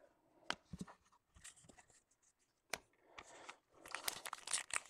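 A few light clicks of trading cards being handled, then, from about four seconds in, the crinkle and tear of a 2014 Prizm Baseball pack wrapper being ripped open.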